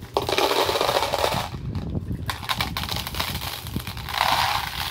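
Milk chocolate M&M's pouring from their bag into a clear plastic container, a dense rattle of hard candy shells hitting plastic and each other. It comes in two pours, a short one and then, after a brief pause, a longer one that swells near the end.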